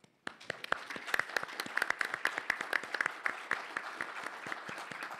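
Audience applauding: many hands clapping, starting abruptly just after the start and gradually thinning out toward the end.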